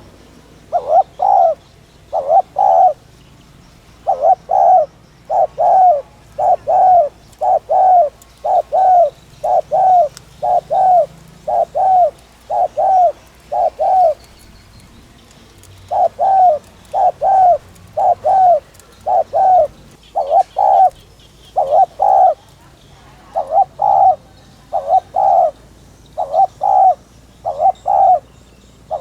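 Spotted dove giving its rapid 'thúc' cooing call: loud short coos repeated in quick pairs, with a pause of about a second and a half about halfway through. This driving call is the one dove keepers play to stir and lure decoy birds.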